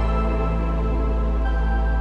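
Background music: soft, sustained held notes over a deep steady bass tone, with a new higher note entering about a second and a half in.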